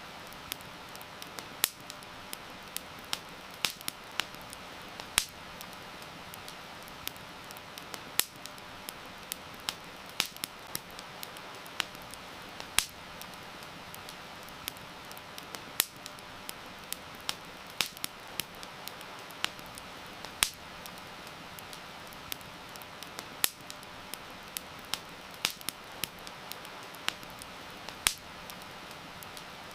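Campfire crackling, with irregular sharp pops and snaps, a few a second and some much louder, over a steady hiss of heavy rain.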